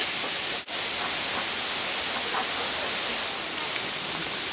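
Steady rushing noise with no distinct events, broken by a brief dropout about half a second in.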